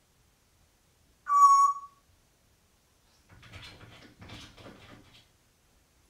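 African grey parrot giving one loud, short whistle about a second in, followed a couple of seconds later by quieter, voice-like chatter.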